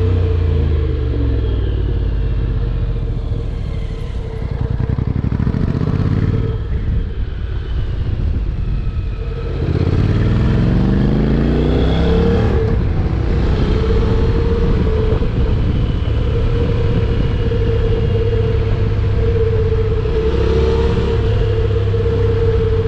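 Honda NC750X's parallel-twin engine on the move: its pitch falls over the first few seconds and it runs quieter for a while, then it revs up about ten seconds in as the bike accelerates, and it holds a steady pitch after that.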